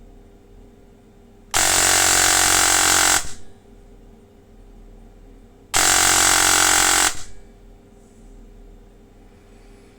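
Electric airsoft gun with a T238 brushless motor and 18:1 DSG gearbox firing two full-auto bursts of about a second and a half each: a dense, very fast buzz of shots that starts abruptly and trails off briefly as the motor spins down.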